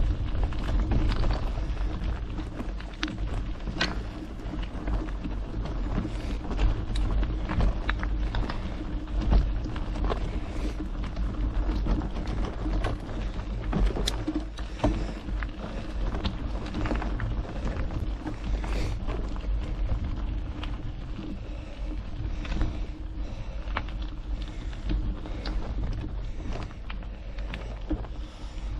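Mountain bike ride noise heard from a GoPro mounted on the bike or rider: a heavy rumble of wind buffeting the microphone, the tyres rolling over the trail surface, and frequent clicks and rattles from the bike.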